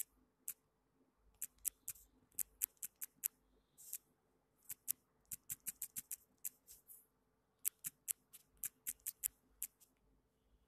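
Faint, quick clicks of typing on a smartphone's on-screen keyboard, irregular taps coming in short runs with brief pauses.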